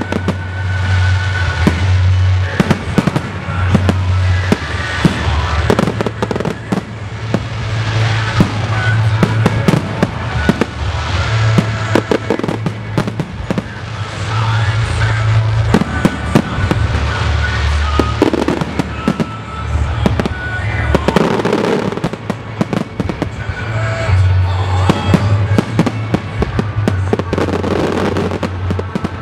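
Pyromusical fireworks: aerial shells bursting with many bangs and crackles in quick succession, with loudspeaker music for the show playing underneath.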